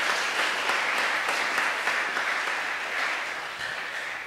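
Audience applauding, the clapping fading away near the end.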